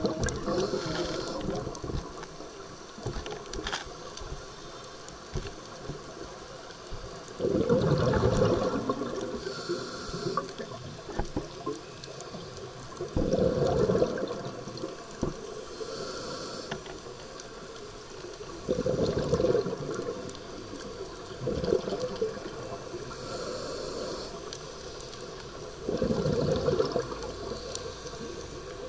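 Scuba diver breathing through a regulator underwater. Exhaled air leaves in bubbly bursts five times, every few seconds, with a fainter thin hiss of the inhale between them.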